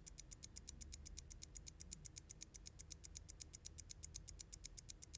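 Clock ticking: rapid, even ticks, about eight a second.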